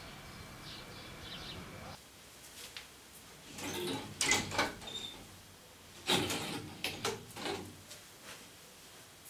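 Wooden louvred shutters being handled: two clusters of knocking and rattling wood, about three and a half and six seconds in. A faint steady outdoor background fills the first two seconds.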